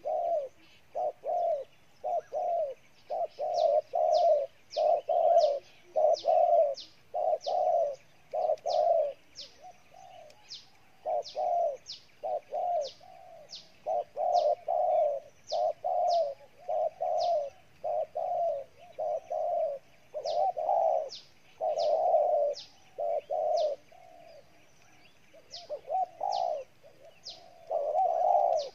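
Spotted dove cooing over and over, about two notes a second with a couple of short pauses, while short high chirps tick above it.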